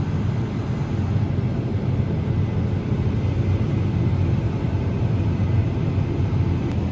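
Farm harvest machinery running with a steady low rumble and no change in pace.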